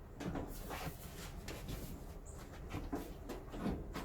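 Faint, irregular knocks and rubbing from the dryer's sheet-metal top panel being handled and lined up over its locking tabs.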